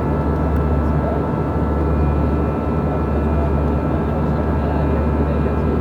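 Steady cabin noise of an Airbus A320 in flight: a deep, even drone of engines and airflow with a few thin, steady whines above it.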